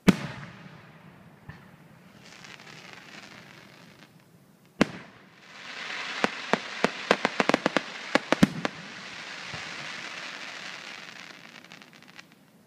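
Aerial firework shells bursting: a loud bang at the start and another about five seconds in, followed by a long hiss with a rapid run of sharp cracks lasting a couple of seconds, then fading away.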